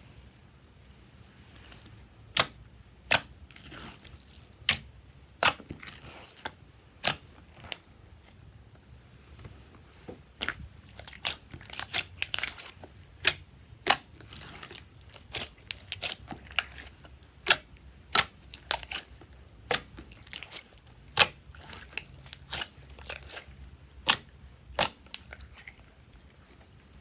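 Irregular sharp snaps and crackles from slime-making materials being handled, starting about two seconds in and coming one to three a second until near the end.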